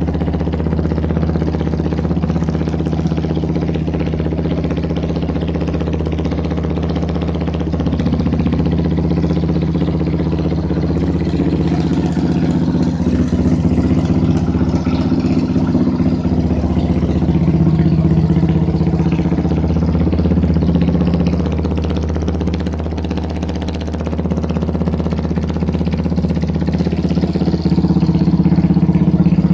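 Yamaha Byson motorcycle's single-cylinder engine idling steadily through an aftermarket Akrapovic-style racing slip-on exhaust.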